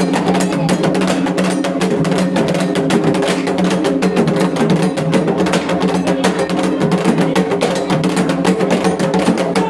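Candomblé ceremonial percussion: drums and a bell or wood-block part keep up a fast, unbroken rhythm, and voices sing a chant over them.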